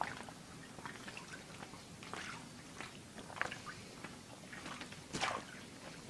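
Scattered soft rustles and small clicks of bed covers being disturbed, the loudest a short rustle about five seconds in.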